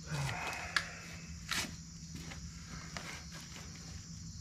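Brief scuffing and a sharp click near the start, then another short scuff about a second and a half in, from someone shifting and stepping about at the work, over steady cricket chirping.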